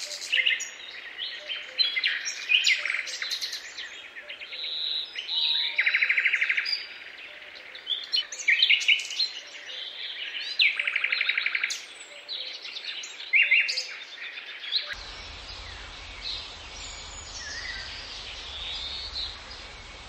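Parrot calls: a busy run of whistles and chirps with two longer, harsh rasping calls, becoming fainter after about fifteen seconds.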